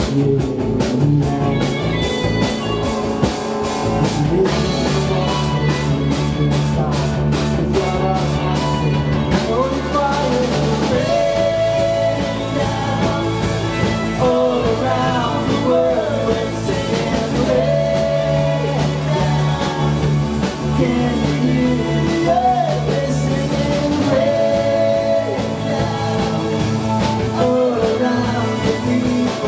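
Live band playing a slow worship song on acoustic guitar, violin, electric guitar, keyboard and drum kit, with a gliding melody line over sustained bass notes.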